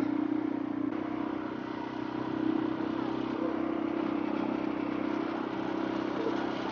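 Vehicle engine running steadily with a constant low hum and road noise, heard while riding along.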